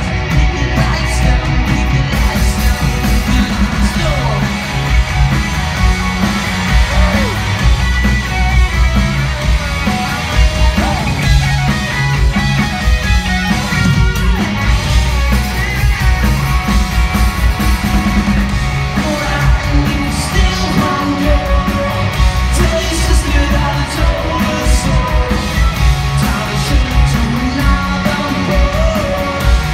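Live rock band playing: electric guitars, bass, keyboard and drums with a singer, heard from the audience in a theatre hall.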